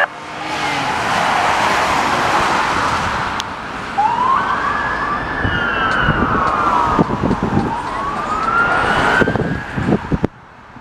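Police car siren in a slow wail, rising about four seconds in, holding, falling and rising again. A loud rushing noise fills the first few seconds, and the sound drops off sharply near the end.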